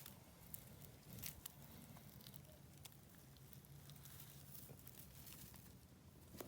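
Near silence: a few faint clicks and rustles, mostly in the first second and a half, over a faint low hum.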